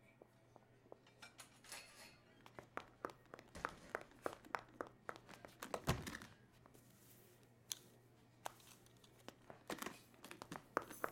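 Faint, scattered small clicks and crinkling handling sounds, with one soft thump about six seconds in.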